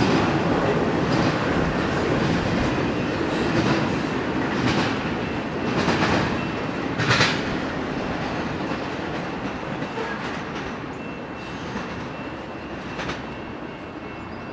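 Tail end of a long double-stack intermodal freight train rolling past and away, its well-car wheels clacking over rail joints, loudest about seven seconds in. The rumble fades steadily as the last car recedes, with a faint steady high whine underneath.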